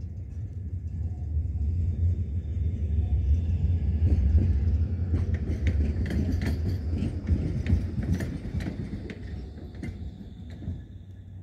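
Tram running on the loop tracks close by: a low rumble that builds to a peak about four seconds in. It is followed by a run of sharp clicks and clatter, typical of wheels crossing rail joints and points, before the sound eases off.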